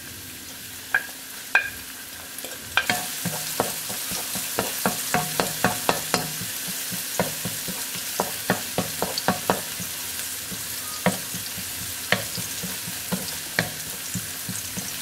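Minced shallots and scallion whites sizzling in hot oil in a nonstick wok as they are fried until fragrant. A wooden spatula stirs them, tapping and clicking against the pan many times, most often in the middle. The sizzle grows louder about three seconds in.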